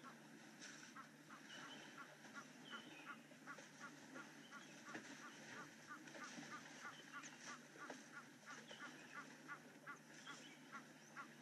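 Faint waterhole ambience: an animal repeats a short call evenly, about three times a second, with scattered higher bird chirps over it.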